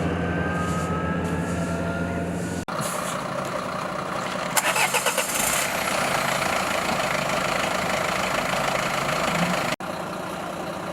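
Vehicle engine running steadily across three cut-together shots, with a brief rapid clatter about halfway through.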